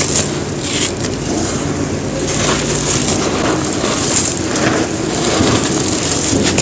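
Dry, gritty white concrete being crumbled and crushed, giving a steady stream of crunches and grainy crackling.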